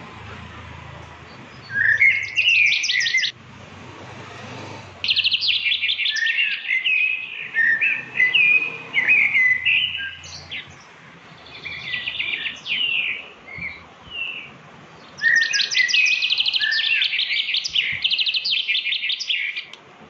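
A small songbird singing: phrases of fast, high rattling trills about two, five and fifteen seconds in, with shorter chirps and warbled notes between them.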